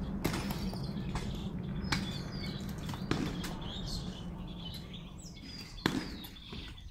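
Scattered sharp knocks of a long iron bar striking and prying at the top of a brick-and-plaster wall being broken by hand, the loudest about six seconds in. Birds chirp in the background.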